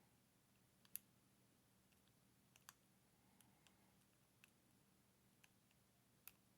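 Faint, irregular small clicks of a lock pick and tension tool working the pin stack of a Master Lock 410 lockout padlock, a six-pin lock with security pins. About nine clicks, with the sharpest about a second in, around two and a half seconds in, and near the end.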